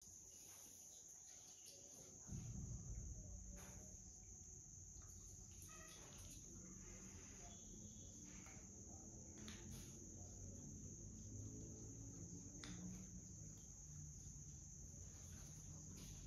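Near silence with a faint, steady high-pitched trill of insects. A low rumble comes in about two seconds in, with a few faint clicks.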